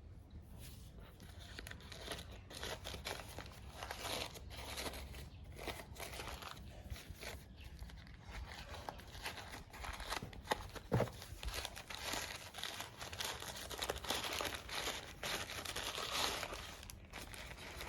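Crinkling and rustling of packaging being handled and unwrapped, with a single knock about eleven seconds in.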